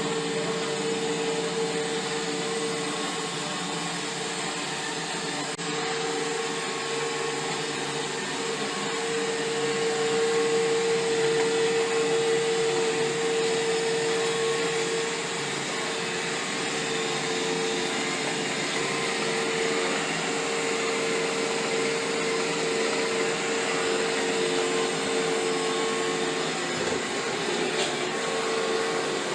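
iRobot Roomba i7+ robot vacuum running, a steady motor whine with a held hum over a hiss of suction.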